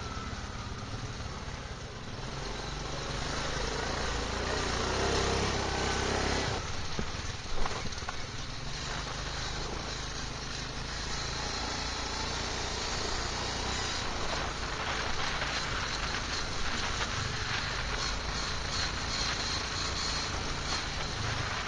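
Quad bike (ATV) engine running under way on a dirt track, with wind and tyre noise over it. The engine rises about four seconds in and eases off around six seconds; a single sharp knock comes about seven and a half seconds in.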